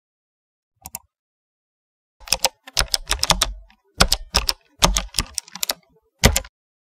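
Two quick clicks about a second in, then computer keyboard typing in quick bursts of keystrokes with short pauses between them.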